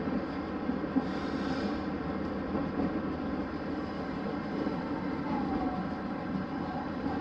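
Steady running noise of a vehicle heard from inside: an even low drone that holds at one level throughout.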